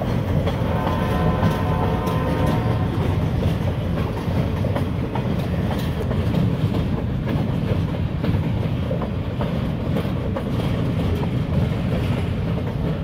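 Empty stake-sided flatcars of a freight train rolling past at a grade crossing: a steady rumble with the wheels clacking over the rail joints.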